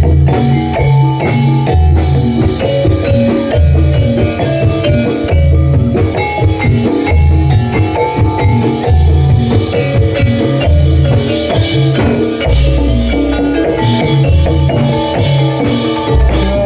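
Jathilan gamelan music for the trance (ndadi) stage: drums and metallophones playing a steady, repeating rhythm with heavy low beats under ringing pitched notes.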